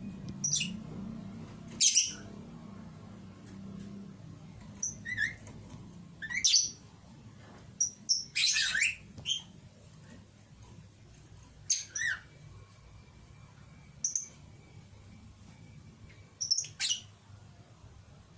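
Pet lovebirds giving short, sharp chirps and squawks, about fifteen calls scattered irregularly, with a quick cluster in the middle.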